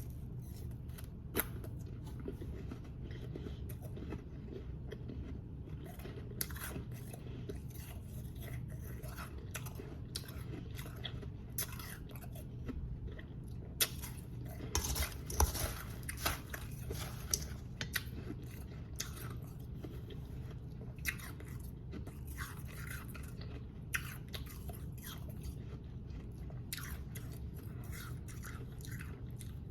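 Powdery frosted ice being bitten and chewed close to the microphone: irregular crisp crunches, with a denser run of crunching about halfway through, over a steady low hum.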